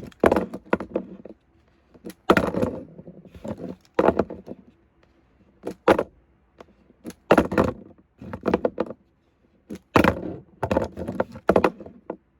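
Toy monster trucks clattering and knocking against each other and a hard surface as they are flipped and land, in a string of separate bursts of clicks and knocks.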